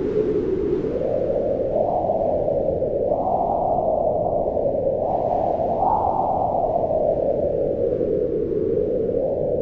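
Howling wind: a steady, deep rush whose pitch slowly rises and falls in long swells, highest around the middle.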